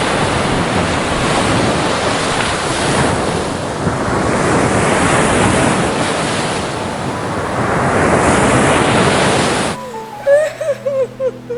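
Ocean waves surging, rising and falling in swells, cut off abruptly near the end. Soft music with short sliding notes follows.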